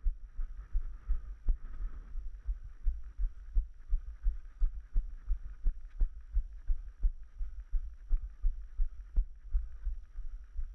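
A runner's footfalls on a rocky dirt trail, heard as dull thuds through a body-worn action camera at a steady running cadence of about three steps a second.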